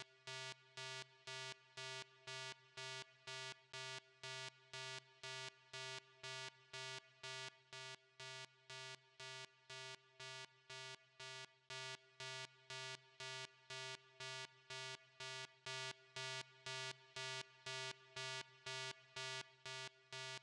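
Faint buzzy electronic beeping, one steady pitch pulsing evenly about twice a second.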